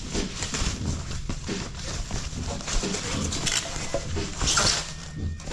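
Plastic and foam packaging wrap rustling and crinkling as it is handled and pulled open, in irregular bursts, loudest about four and a half seconds in.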